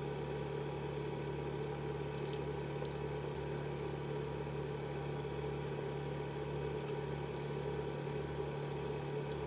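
A steady low hum with a few faint ticks, like an appliance or fan running.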